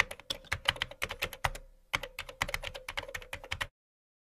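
Computer-keyboard typing sound effect: rapid key clicks in two runs, with a short break just under two seconds in, stopping a little before the end.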